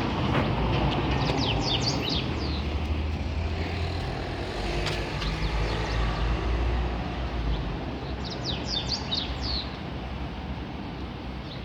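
A steady low rumble with hiss, and over it a bird chirping in two short bursts of quick, high, falling notes, about a second in and again about eight seconds in.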